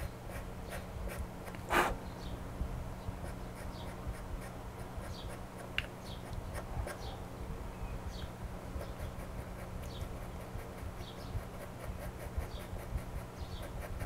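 Pastel pencil scratching on paper in short, irregular strokes as the tip is worked over a drawing, with one louder stroke about two seconds in. A faint steady hum runs underneath.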